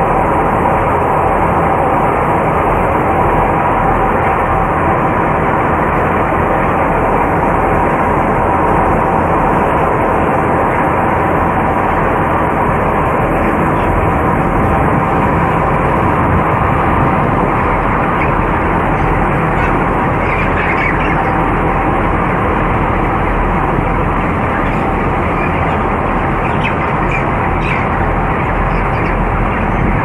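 Large cone exhaust fans of a closed broiler house running together, a loud, steady, unbroken drone with a faint hum.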